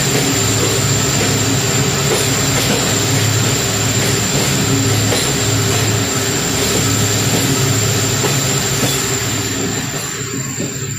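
Train running on the rails: a steady rumble with wheel and carriage noise, easing a little near the end.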